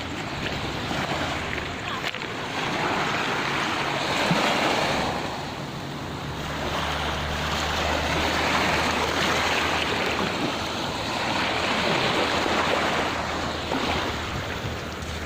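Ocean surf: waves breaking and washing up the beach, swelling and fading every few seconds, with a steady low rumble underneath.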